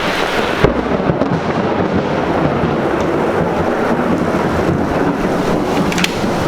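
Thunder rolling and rumbling over rain, with a sharp crack just under a second in, following a close lightning bolt.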